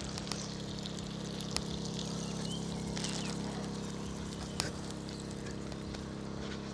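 Hash browns sizzling in hot oil in a pan, with scattered crackles and pops, over a steady low hum.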